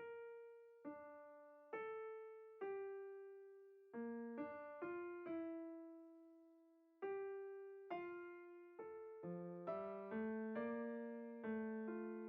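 Background music: a gentle piano melody of single notes that each ring out and fade, picking up pace with low two-note accompaniment near the end.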